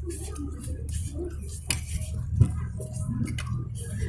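Eating sounds from several people sharing a plate of pancit canton noodles: scattered light clicks and knocks of utensils on the dish and soft chewing noises, over a low steady hum.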